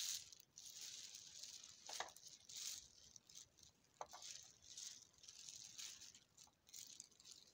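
Faint rustling and crinkling of a thin plastic bag in irregular bursts as hands rummage through it, loudest right at the start.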